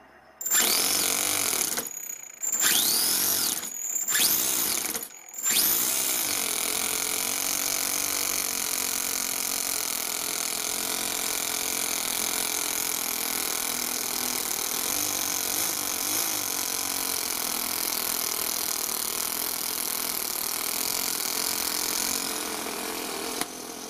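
Toyan single-cylinder overhead-cam four-stroke model engine in an RC car: it starts up in a few short bursts with brief breaks over the first five seconds, then runs steadily until it cuts off suddenly near the end.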